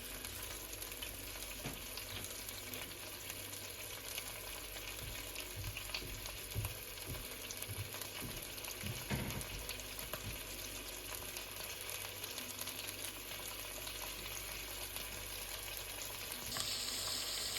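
Sausages sizzling as they brown in melted beef tallow in a frying pan over low-to-medium heat: a steady frying hiss with a few soft knocks. The sizzle grows louder and brighter near the end.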